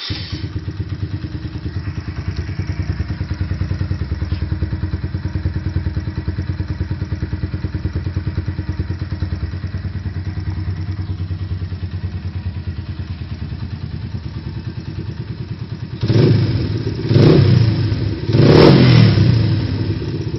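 Suzuki Yes 125 single-cylinder four-stroke engine, fitted with a Roncar Aluminium SS aftermarket exhaust, starting up and settling into a steady, pulsing idle. Near the end the throttle is blipped three times, each rev louder than the idle.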